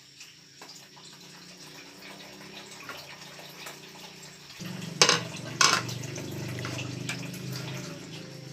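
Tableware knocking twice at a meal table, a plate or spoon striking about five seconds in, over a steady low hum and hiss that grows louder shortly before the knocks.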